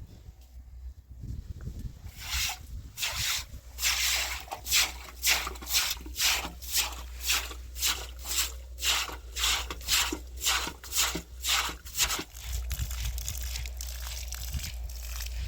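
Hand scrubbing in a cleaning job: rhythmic rubbing strokes, about two a second, that start about two seconds in and stop some ten seconds later, leaving a steady low rushing noise.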